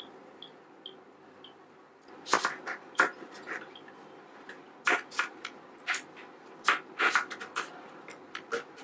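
Chef's knife slicing cucumbers into rounds on a plastic cutting board. Sharp, irregular chops, several a second in short runs, start about two seconds in.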